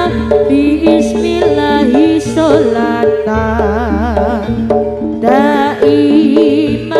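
Javanese jaranan music playing loudly: a wavering melody over a steady held tone, with drums pounding underneath.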